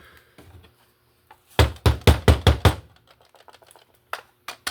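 A quick run of six or seven sharp clicks and knocks, then a few fainter, scattered clicks near the end: parts of a Roomba robot vacuum being handled and knocked together during cleaning.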